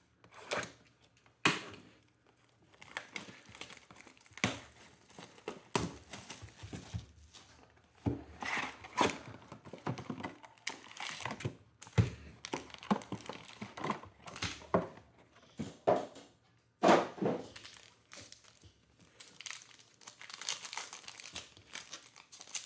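Hands opening a cardboard trading-card hobby box and handling its foil-wrapped packs: irregular crinkling of foil wrappers and cardboard, with a few sharper knocks, and a foil pack being torn open near the end.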